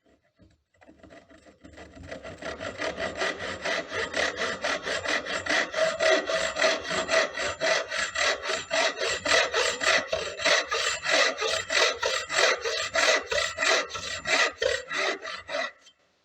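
A hand tool scraping back and forth on wood in fast, even strokes, about three to four a second. It builds up over the first couple of seconds and stops abruptly near the end.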